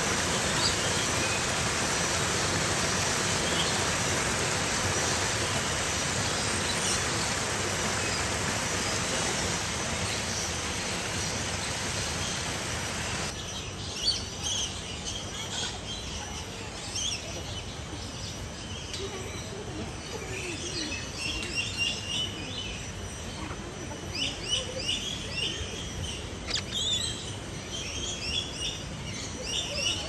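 A steady, even rushing noise, then from a cut about 13 seconds in, a quieter background with many short, high bird chirps and calls coming and going.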